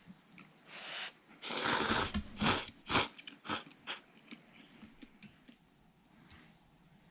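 A person slurping ramen noodles in a string of loud, noisy slurps between about one and a half and four seconds in, with faint ticks after them.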